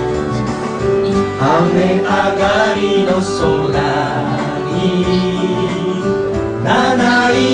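Several voices singing a Japanese song together into microphones over a guitar-led backing. The singing comes in about a second and a half in, after the instrumental lead-in.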